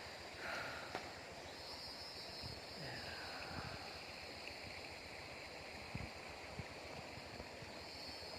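Faint outdoor river ambience: a low, even rushing hiss of flowing water under a steady high-pitched buzz, with a short chirp about half a second in and a faint falling call near three seconds.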